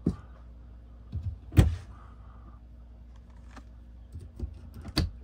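Wooden overhead cabinet doors being opened and swung shut by hand: a handful of sharp knocks and clicks, the loudest about a second and a half in and another just before the end, over a low steady hum.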